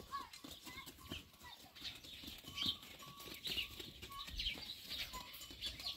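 Farmyard sounds: goats moving about the yard, with small birds chirping repeatedly and scattered light clicks.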